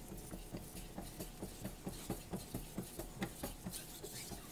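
Carbon steel kitchen knife being stroked back and forth on a wet, slurried Naniwa Aotoshi 2000-grit water stone, a quick even rhythm of rasping strokes, several a second.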